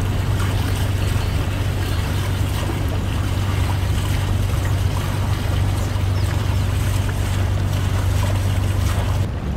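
Houseboat engine running steadily under way, a constant low hum with the rush of water and wind over it. The sound changes abruptly near the end.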